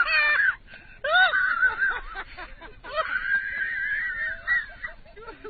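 High-pitched human cries and shrieks, then a long drawn-out wail starting about three seconds in.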